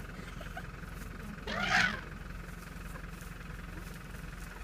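An African elephant calf gives one short trumpeting squeal, rising then falling in pitch, about a second and a half in, over the steady low hum of an idling vehicle engine.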